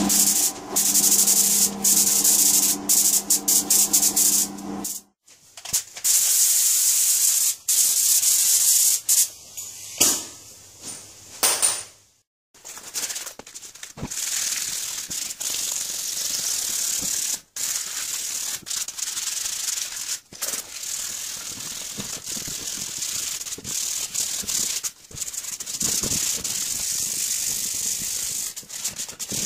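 Hand wet-sanding the grey-primed steel body of an old screw bottle jack with abrasive paper: continuous scratchy rubbing strokes through the second half. The opening seconds are a spray gun's hiss over a steady hum.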